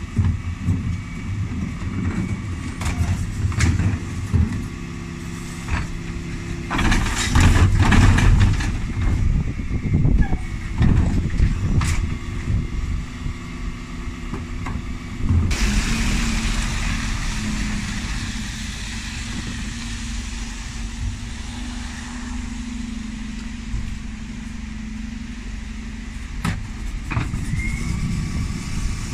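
Dennis Elite 6 bin lorry's engine running while its Terberg bin lift empties wheelie bins, with a run of knocks and clattering as the bins are tipped. About halfway through a long hiss with a steady hum starts suddenly and dies away some ten seconds later.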